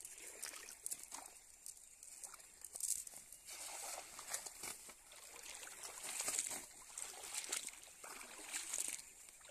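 Cast net thrown into a shallow river: water splashing as the net lands, then sloshing and trickling with scattered small splashes as the thrower wades.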